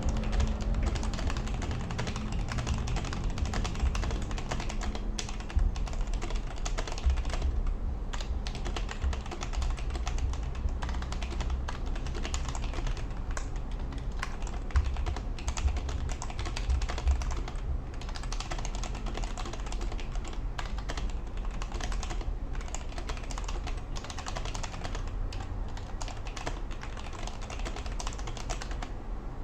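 Continuous fast typing on a Royal Kludge RK G68 65% mechanical keyboard: a dense, irregular stream of key clicks and clacks as the switches bottom out and return.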